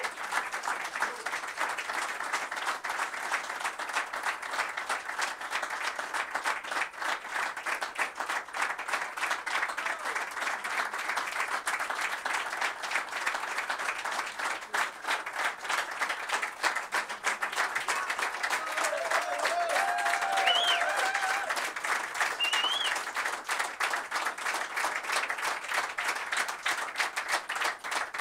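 Audience applauding steadily, a dense sustained round of clapping.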